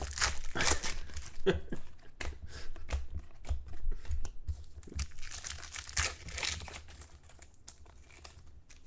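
Topps Chrome trading-card pack wrappers being torn and crinkled as cards are pulled out and handled: irregular crackling and rustling, busiest at first and thinning out toward the end.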